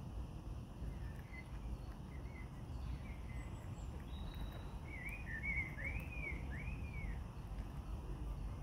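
Steady low outdoor background noise, with a bird calling a quick run of about four arching notes about five seconds in.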